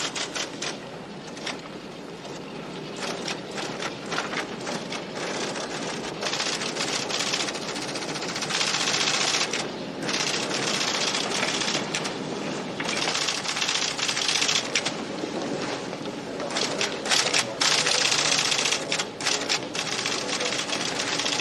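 Electric typewriter-style office machine clattering in fast, dense runs of key strikes, pausing briefly a few times.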